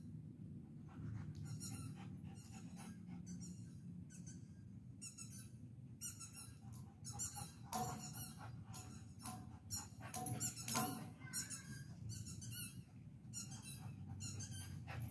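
A dog whining over and over in short, high-pitched, wavering whines, about one or two a second.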